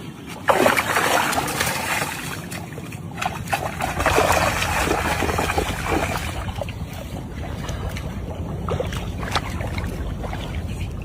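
Water splashing and sloshing in two spells, one starting about half a second in and one about four seconds in, over a steady low hum.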